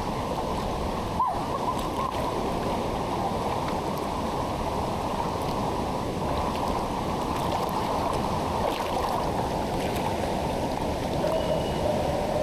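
Fast-flowing river water rushing steadily through a narrow rock canyon, with one short knock about a second in.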